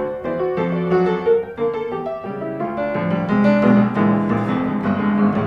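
Background piano music, a run of notes and chords played steadily.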